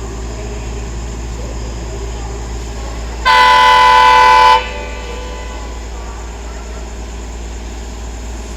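Indian locomotive horn sounding one loud blast of a little over a second, about three seconds in, over a steady low hum.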